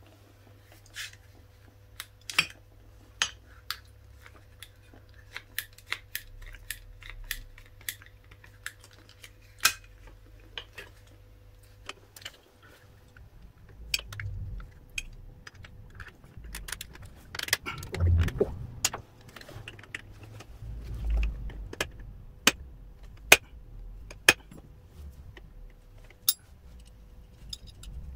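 Small steel parts and hand tools clinking and tapping as leaf-spring mounting plates, bolts and poly-bush parts are handled and fitted by hand: irregular sharp metallic clicks, with a few duller knocks and handling noises in the middle.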